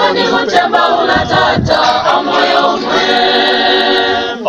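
A choir singing in harmony, many voices together, ending on a long held chord in the last second and a half.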